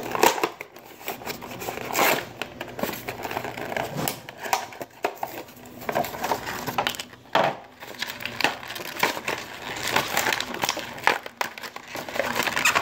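Cardboard and clear plastic toy packaging being torn and crinkled open by hand, in irregular rips, rustles and crackles.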